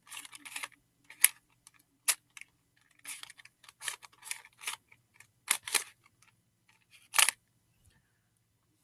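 Plastic barrel cube (a 3x3 twisty puzzle) being turned by hand: a run of irregular clicks and short scraping clacks as the layers are twisted. The cube is new and stiff, not yet broken in, so the turns sound clanky.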